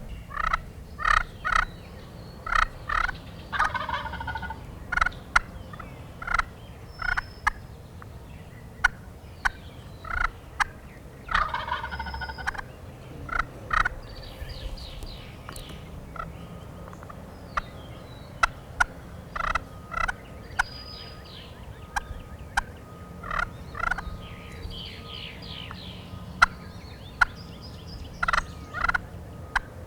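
Wild turkey gobblers gobbling several times, answered by runs of short, sharp yelping and clucking calls.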